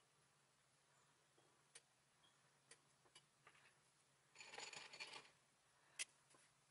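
Near silence, with a few faint ticks, a soft rustle just past halfway and one sharper click near the end, from hands threading corn puffs onto wooden toothpicks.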